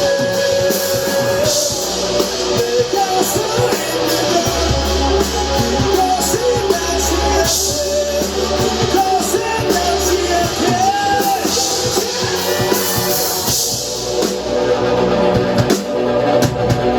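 Live rock band performing a song: a singer over electric guitar and drums.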